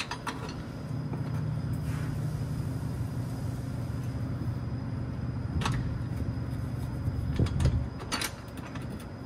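Metal clinks and scrapes as a clamp band is fitted by hand around a truck's air brake chamber over its new diaphragm. A few sharp clinks stand out, most of them near the end, over a steady low hum.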